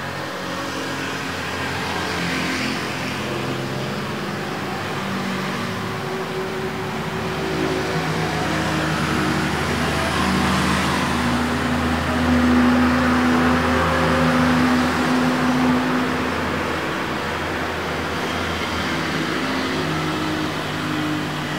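A steady mechanical hum under a rush of noise, with a few low held tones that shift now and then. It grows a little louder in the middle.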